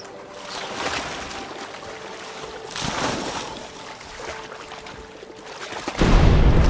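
Shallow running water trickling and splashing, swelling a couple of times. Near the end a much louder rushing noise cuts in suddenly.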